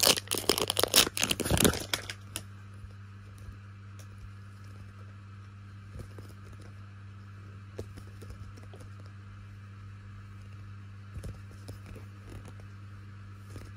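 Plastic wrapper crinkling and tearing as it is peeled off a plastic surprise capsule ball, loud and ending about two seconds in. After that a steady low hum remains, with a few faint clicks as the plastic capsule is handled.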